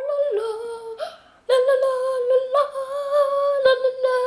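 A voice humming in long, steady held notes, with a short break about a second in.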